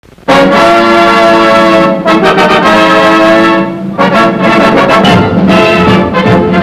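Orchestral film title music led by brass. Loud held brass chords start abruptly just after the opening, then change to shorter moving notes.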